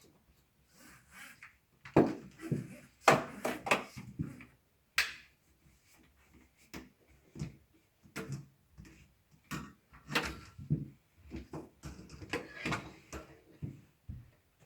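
Irregular knocks and clatter of hard vacuum cleaner parts being handled and wiped down with a cloth after use, with a cluster of louder knocks a few seconds in.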